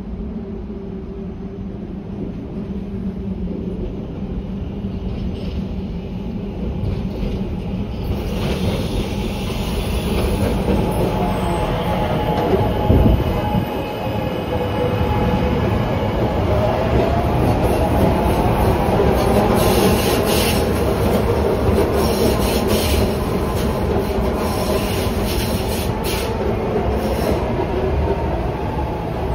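Market-Frankford Line subway train running through the station with a steady hum that grows louder after several seconds. In the second half comes a wavering squeal from the wheels, and a run of rail-joint clicks near the end.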